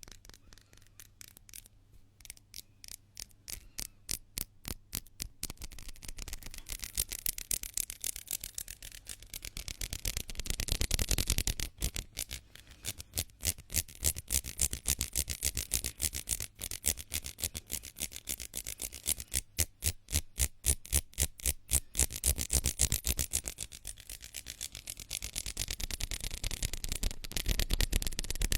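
Hands rubbing together quickly and repeatedly close to the microphone, a dry swishing at about four to five strokes a second that swells louder and eases off in waves.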